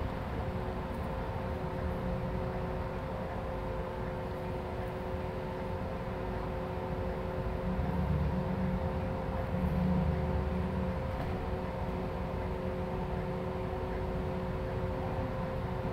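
Shuttle bus driving, heard from inside the cabin: a steady engine and road rumble with a constant hum over it. The low rumble swells briefly about eight and ten seconds in.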